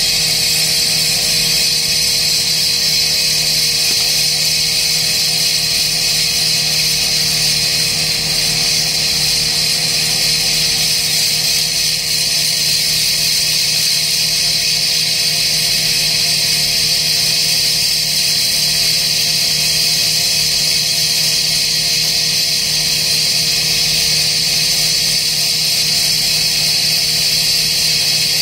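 Piling rig's engine running steadily, a constant drone with a high hiss over it and no hammer blows.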